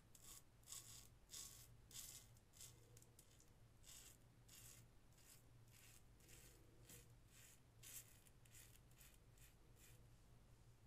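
Faint, crisp scraping of a Parker semi-slant safety razor with a Gillette Rubie blade cutting stubble on a lathered scalp, in short strokes at about two a second.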